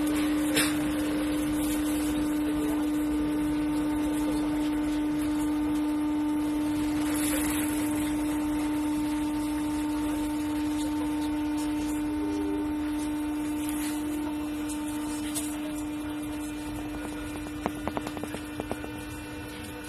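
MF77 metro train running through a tunnel, heard from inside the car: a steady rumble of running noise with a single held whine. The whine fades out near the end, and a quick run of clicks comes from the wheels on the track.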